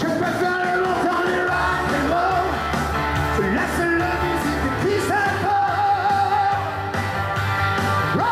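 A man singing into a microphone with an acoustic guitar, amplified through PA speakers, a continuous sung melody with held notes.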